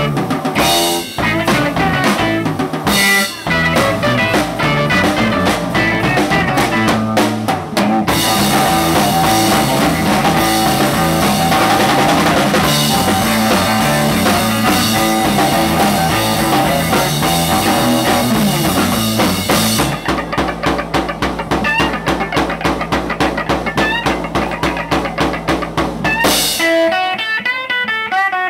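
Live instrumental rock: an electric guitar playing over a full drum kit with heavy cymbals. Near the end the drums drop out, leaving the electric guitar playing alone.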